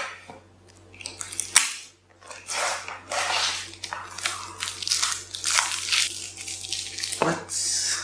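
Clear packing tape being peeled and torn off a cardboard box in repeated pulls, with a sharp snap about a second and a half in.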